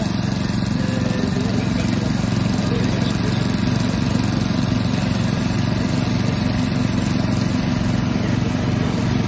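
A small engine running steadily at one even pitch, with no change in speed.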